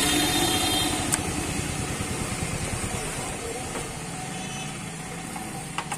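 A motor vehicle's engine running close by, a low pulsing rumble that slowly fades as the vehicle moves off, with a single light click about a second in.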